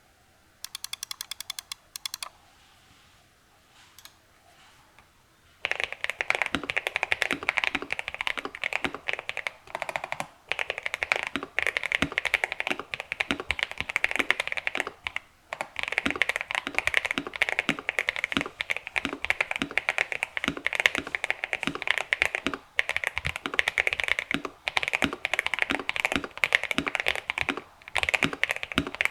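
Liumang 84 mechanical keyboard with lubed Jixian Milky Purple tactile switches and PBT keycaps, tape and PE foam modded, being typed on quickly. After a brief fast run of clicks near the start and a short quiet gap, steady fast typing begins about six seconds in and runs on with only brief pauses.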